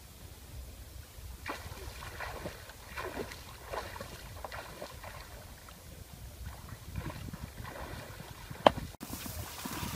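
Water splashing and sloshing irregularly as a child swims through a shallow muddy river. A single sharp click near the end is the loudest sound.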